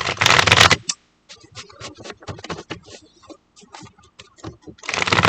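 Tarot cards being shuffled by hand: a burst of rapid riffling at the start and another near the end, with a string of light card clicks and taps in between.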